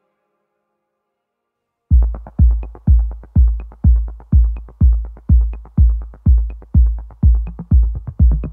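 Silence for about two seconds, then electronic background music starts. It has a steady, evenly spaced kick-drum beat, about two beats a second, with light ticks on top.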